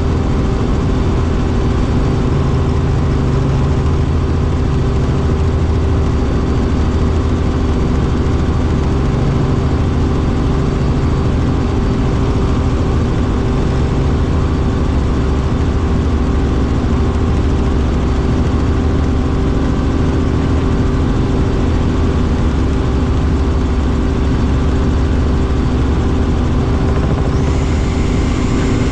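Helicopter in flight heard from inside the cabin: a loud, steady drone of engine and rotor with a deep low rumble and a constant hum.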